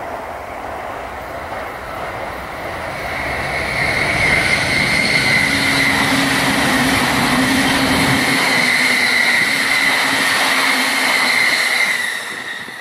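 JR East E657 series electric train passing at speed. The rail noise builds over the first few seconds, stays loud with a steady high whine for about eight seconds, then drops away near the end as the train goes by.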